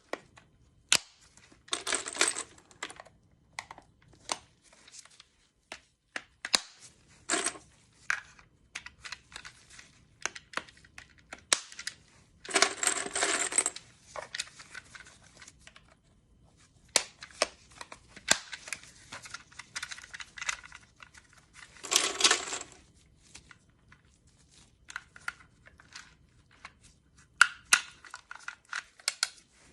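Hand handling of a Magpul D-60 drum magazine: a string of sharp clicks and snaps, with three longer clinking rattles, about 2 seconds in, around 13 seconds and around 22 seconds.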